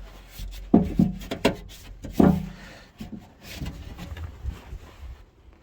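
A string of hard knocks and clatters as metal door-lock linkage parts and tools are worked and handled. The loudest are about three-quarters of a second, one and a half seconds and two and a quarter seconds in, followed by quieter taps.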